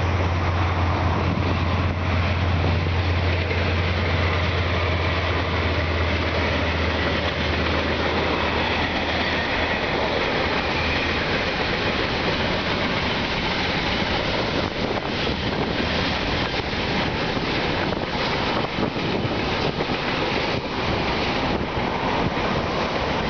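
Diesel-hauled freight train passing close by. The locomotive's low, steady engine drone dominates for the first ten seconds or so, then gives way to the rumble of the container wagons and boxcars rolling past, with rapid clicks of wheels over the rail joints.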